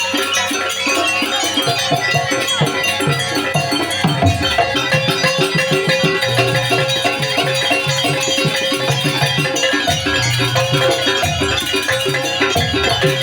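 Traditional Banyuwangi gamelan music for a barong dance: a fast, even rhythm of struck metal tones over a steady held tone, with low drum beats recurring every few seconds.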